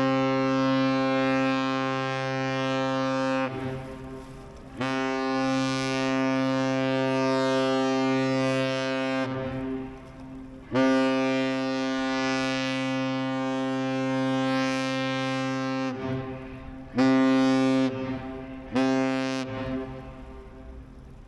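Ship's horn of the thousand-foot lake freighter American Century sounding the captain's salute: three long blasts and then two short, all at one steady deep pitch. The first long blast is already under way and stops a few seconds in.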